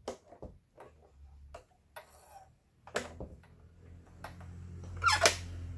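Light irregular clicks and taps of hands working the needle and presser-foot area of a household sewing machine. About three seconds in, a louder click, then a steady low hum, with a loud sharp noise about five seconds in.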